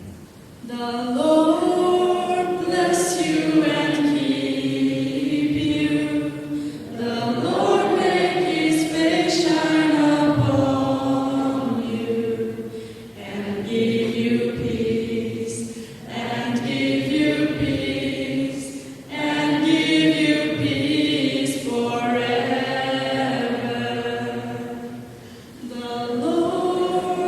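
Church congregation singing together after the benediction, in slow phrases of long held notes with short breaks between them.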